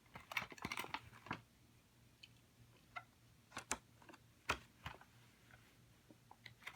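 Scattered light clicks and crinkles of toy-car packaging being handled and cut open, a cluster in the first second or so, then single sharp taps every second or so.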